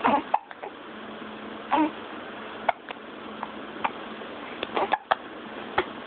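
Infant hiccuping: about half a dozen short, sharp hiccups at irregular intervals.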